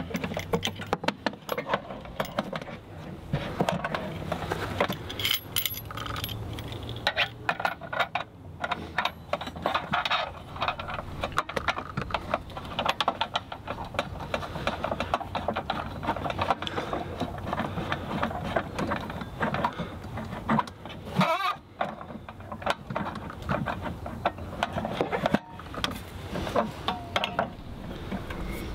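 Metal cookware and utensils clinking and clattering as they are handled, many small knocks and jingles throughout, over a low steady hum.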